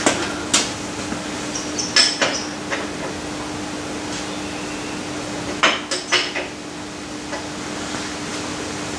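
Steel spanners clinking and knocking together as they are handled, sharp metallic clinks in two clusters, one around the first two or three seconds and one about six seconds in.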